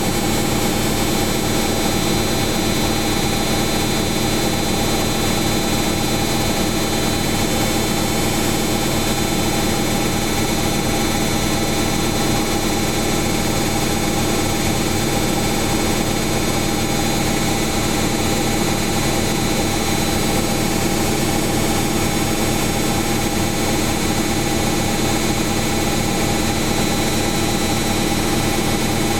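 Samsung Eco Bubble front-loading washing machine in its spin cycle, the drum spinning at a constant speed: a steady hum with several fixed tones over an even rush of noise.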